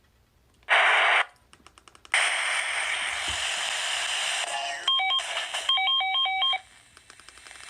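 Radio static between broadcasts: a short burst of hiss about a second in, a few faint clicks, then steady hiss for about two and a half seconds. It is followed by a quick run of short electronic two-tone beeps that stop about six and a half seconds in.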